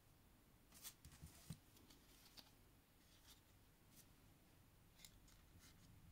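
Faint, scattered clicks and scrapes of a plastic Transformers Skullgrin action figure being picked up and handled as it is transformed out of tank mode, with a small cluster of clicks about a second in.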